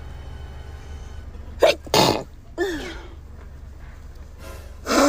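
A woman sneezing in a fit: a loud sneeze about two seconds in, with a short falling voiced sound just after it, and another sneeze starting near the end.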